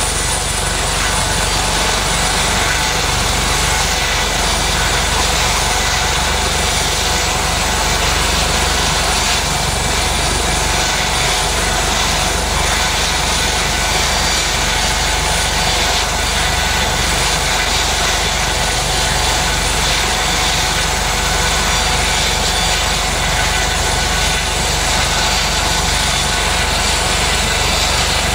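US Coast Guard MH-65 Dolphin twin-turbine helicopter running on the ground with its rotors turning: a steady high turbine whine over the rotor noise.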